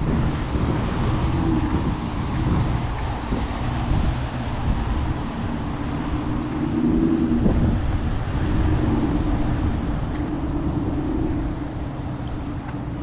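Hurricane-force wind battering the microphone: a continuous low rumble with a wavering howl that swells and fades.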